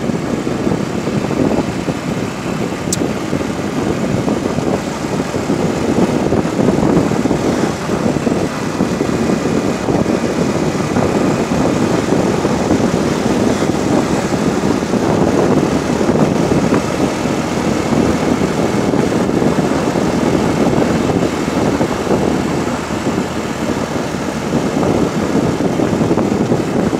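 Steady wind rush buffeting the microphone of a moving motorcycle, with engine and road noise beneath it.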